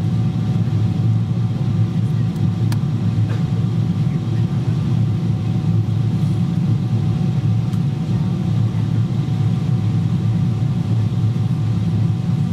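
Steady low cabin roar inside a Boeing 777-200ER on approach, from its GE90 engines and the air rushing past the fuselage, with a faint steady whine and a few light clicks.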